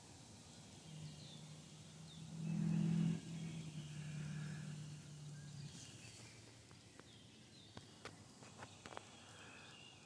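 A steady low hum at one pitch that starts about a second in, is loudest for about half a second around three seconds, and stops near six seconds. Faint bird chirps early on, and a few light clicks near the end.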